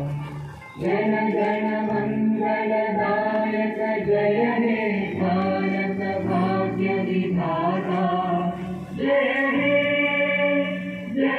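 Choral music: several voices singing long held notes together.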